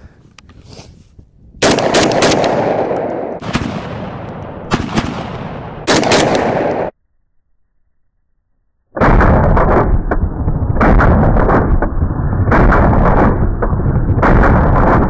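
Saiga 12 semi-automatic short-barrel 12-gauge shotgun firing high-brass slugs in quick succession: loud shots with ringing echo, the gun now cycling after earlier failures to extract. After a couple of seconds of dead silence comes a second, denser string of shots that sounds distorted and muffled.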